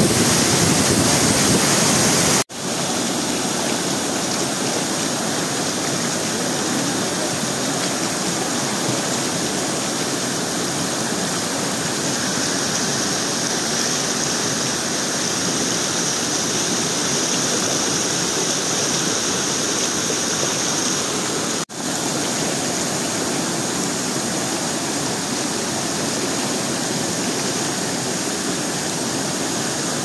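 Waterfall and white-water rapids rushing steadily over rock. The sound is a little louder in the first couple of seconds and drops out for an instant twice, about two seconds in and a little after twenty seconds.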